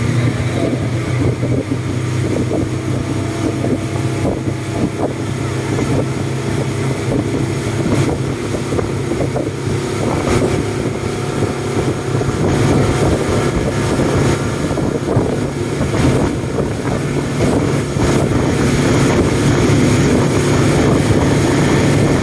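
Speedboat engine running steadily at cruising speed, with wind buffeting the microphone. It grows slightly louder near the end.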